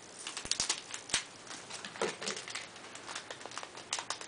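Yu-Gi-Oh trading cards and a foil booster-pack wrapper being handled: a run of small irregular clicks and crinkles as the cards are flicked and pulled from the pack.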